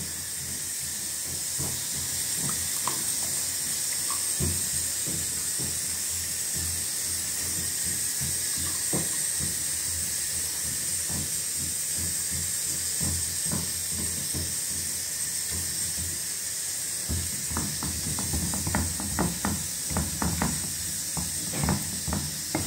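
A pressure cooker hissing steadily as it vents steam. From about three-quarters of the way in, a stone pestle knocks and scrapes in a stone mortar (cobek), grinding peanuts into a paste for peanut sauce.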